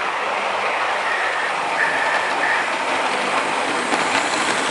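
Model railway train running along the track: a steady rolling noise with a faint high squeal about a second in and light clicks near the end.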